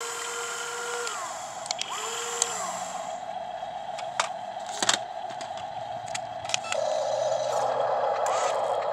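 Small electric motors of a radio-controlled model excavator whining as its arm moves, each move starting and stopping with a quick rise and fall in pitch, over a steady motor hum with a few sharp clicks. The hum grows louder about two-thirds through.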